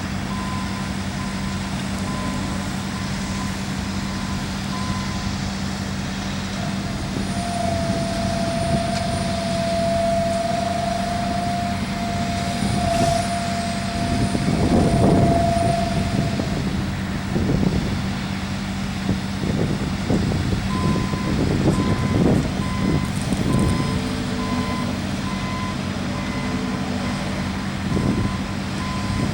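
Heavy diesel equipment at a concrete pour running with a steady low drone, with uneven engine surges in the second half. A truck's reversing beeper sounds at the start and again from about two-thirds of the way through, and a long steady tone is held in the middle.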